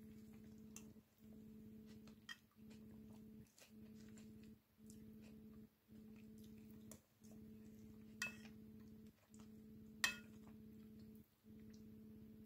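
A metal spoon clinking against a ceramic soup bowl twice, with a short ringing each time; the second clink, about ten seconds in, is the loudest. Faint small clicks run between them over a steady low hum that drops out briefly about once a second.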